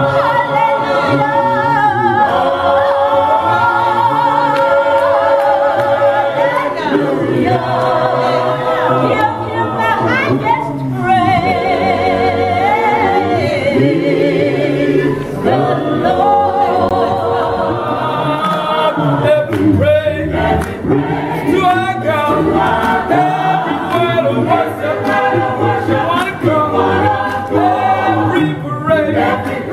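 Gospel choir of women and men singing a cappella, holding long notes with vibrato and sliding between them.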